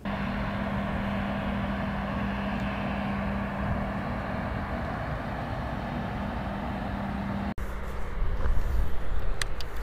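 Steady running noise of a vehicle on the move, a constant low hum over an even rush of noise, which cuts off suddenly about seven and a half seconds in. After it comes a low rumble with a few sharp clicks.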